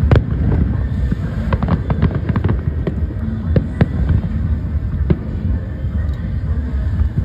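Aerial fireworks shells bursting overhead: a continuous low rumble of explosions with sharp pops and crackles, including a quick cluster of cracks about two seconds in.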